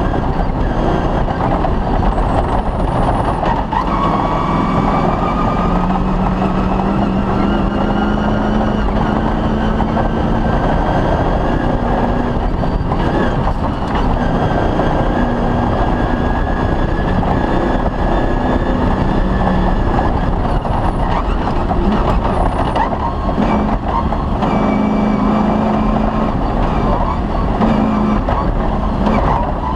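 Cross-country rally car's engine running hard under load on a special stage, its revs stepping up and down through gear changes, over continuous rough noise from the loose track and the car's body.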